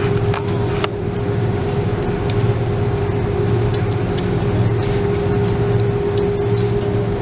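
Airliner engines and airflow heard inside the passenger cabin: a loud, steady drone with a constant held tone over it.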